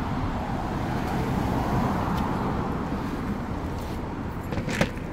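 Steady road-traffic noise, with a single sharp click near the end.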